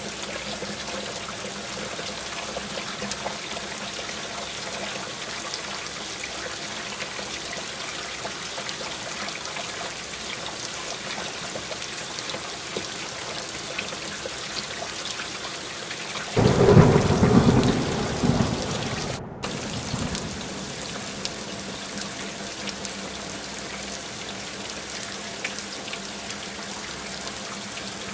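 Steady rain falling in an even hiss. About two-thirds of the way through, a loud clap of thunder rumbles in and fades over a few seconds while the rain goes on.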